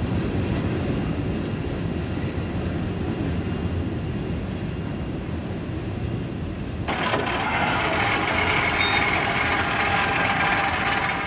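Freight train rolling by with a steady low rumble. About seven seconds in, a sharp click comes, then brighter, louder wheel-on-rail noise that eases off near the end.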